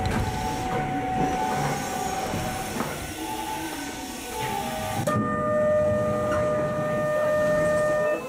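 Keihan 800 series electric train running in the subway tunnel, with steady wheel and running noise. About five seconds in, the high hiss of the running noise drops sharply and a steady tone of several pitches takes over until the end.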